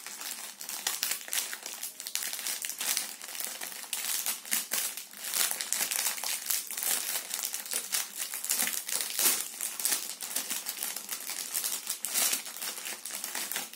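A thin clear plastic bag crinkling as small hands handle and open it: a dense run of small crackles and rustles.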